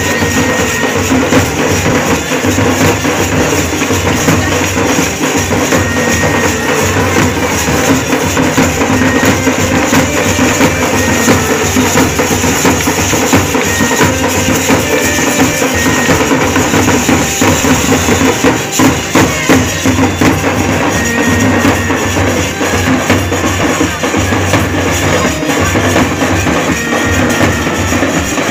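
Loud, fast drumming with jingling metal percussion, a dense rhythm that keeps going without a break.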